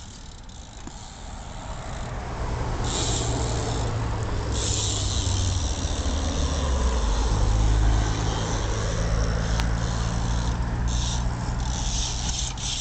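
Motor vehicle engine running with a steady low hum that shifts pitch twice and grows louder partway through, under a hiss.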